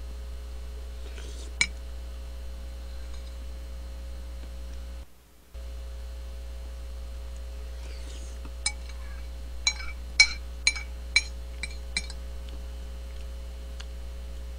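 Metal spoon clinking and scraping against a plate while the last of the curry is scooped up: one clink about a second and a half in, then a quick run of about eight clinks between eight and twelve seconds in, over a steady low hum.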